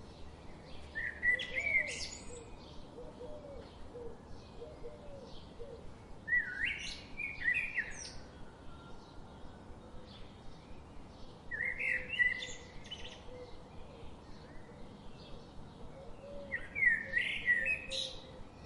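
A songbird singing a short phrase four times, about every five seconds, with faint chirps between the phrases.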